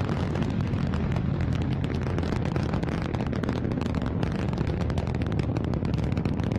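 Antares rocket's first-stage engines (two RD-181s) firing in ascent: a steady low rumble shot through with dense crackling.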